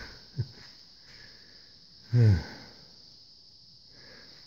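A man's short murmured 'hmm', falling in pitch, about two seconds in, with a tiny grunt just before it, over a steady faint high hiss.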